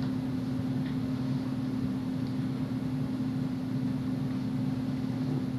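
Steady background hum with a constant low tone over a faint hiss.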